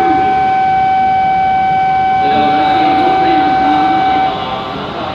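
A loud, steady electronic ringing at one pitch, like a shinkansen platform's departure bell, which stops abruptly about four seconds in. A voice comes in under it about two seconds in.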